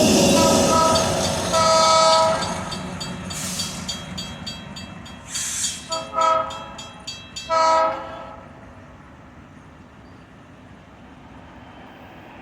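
Locomotive horn of a Herzog work train sounding four blasts, the second one longer, while the passing train's rumble fades away. Two brief hissing bursts come in between, and everything dies down to a low background after the last blast.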